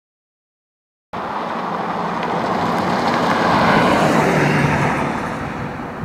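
Silence for about the first second, then a car passing by on a gravel road: tyre and engine noise swells to its loudest a little past the middle and fades toward the end.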